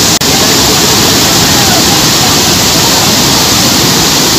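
Muddy floodwater rushing over a bridge and pouring off its edge in a loud, steady rush, with a split-second dropout just after the start.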